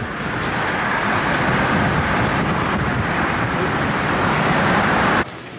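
Wind rushing and road noise inside an open-top car driving at highway speed, a steady loud rush that builds slightly and then cuts off suddenly near the end.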